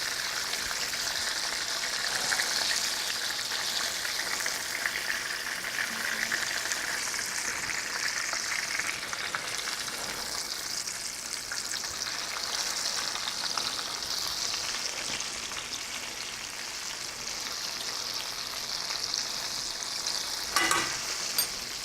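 Breaded turkey cutlets pan-frying in hot oil: a steady sizzle with fine crackling throughout, and a brief burst of louder crackles near the end.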